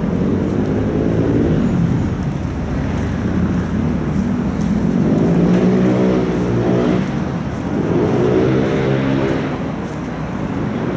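Road traffic passing: a steady rumble with about three vehicle engines rising and then falling in pitch as they go by.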